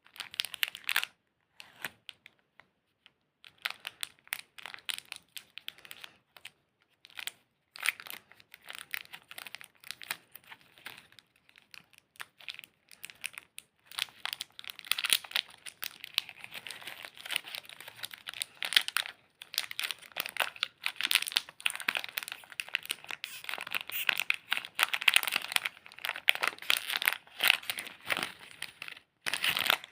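Crinkling and tearing of a Cadbury Dairy Milk Silk chocolate bar wrapper as it is handled and opened by hand. It comes in scattered rustles at first, then as nearly continuous crackling in the second half.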